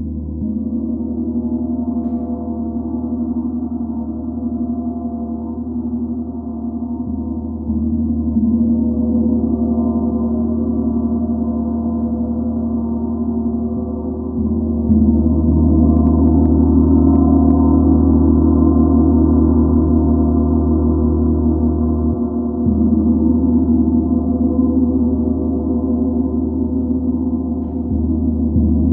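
An 85 cm Real Gong symphonic gong rubbed and struck softly with felt mallets, ringing with a sustained low shimmering wash of many overlapping tones. The sound is renewed and swells louder about every seven seconds as fresh mallet strokes come in.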